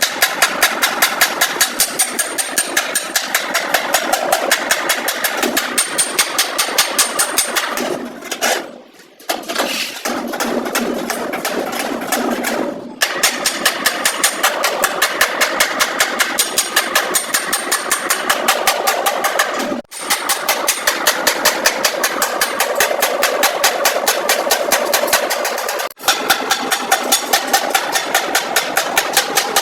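Steady hand-hammering on sheet metal, about three sharp strikes a second with a faint metallic ring, as a car body panel is beaten back into shape.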